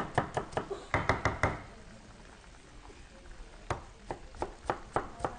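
Cleaver chopping a red onion into cubes on a wooden cutting board: a quick run of sharp knocks on the board, a pause of about two seconds, then another run of knocks.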